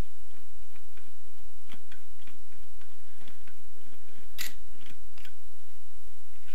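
Socket and extension bar turned by hand to wind a long crankcase bolt out of a motorcycle engine's aluminium crankcase: irregular light metallic ticks and clicks, with one sharper clink about four and a half seconds in.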